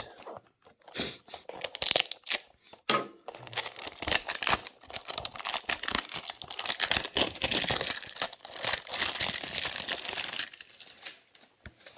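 Packaging crinkling and tearing as a small diecast model is unwrapped, a busy run of rustles and sharp crackles that dies away about a second and a half before the end.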